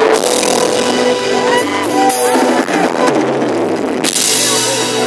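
Live band playing over big outdoor speaker stacks: drum kit, guitars and keyboard.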